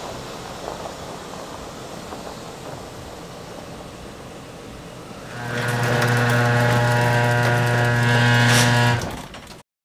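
A lifted Jeep Wrangler drives off with a low, even engine noise. About five seconds in, an electric garage door opener starts with a loud, steady motor hum and runs for about three and a half seconds as the overhead door comes down. The sound stops abruptly near the end.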